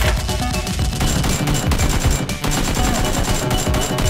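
Rapid gunfire sound effects, shots in quick succession, over background music.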